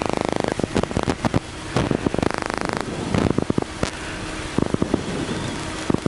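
Crackling, clicking static on the aircraft's radio and intercom audio, with two short bursts of rapid buzzing, one at the start and one about two seconds in.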